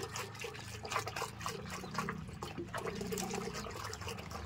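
A hand swishing and splashing water in a plastic bucket, stirring shampoo into it, in a run of irregular little sloshes.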